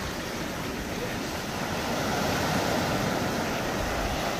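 Waves breaking and washing in on the shore in a steady rush, with wind rumbling on the microphone.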